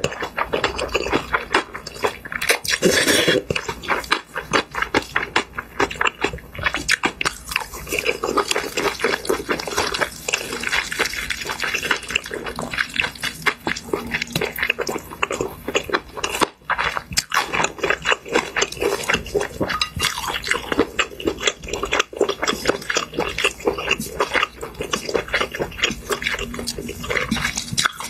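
Eating sounds: noodles slurped and chewed with a dense run of wet smacking clicks, and chopsticks now and then knocking the bowl.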